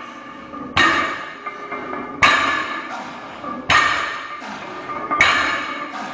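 A trap bar loaded with 420 lb of iron plates clanks on the rubber mat with each deadlift rep. There are four sharp metallic clanks about one and a half seconds apart, each ringing briefly.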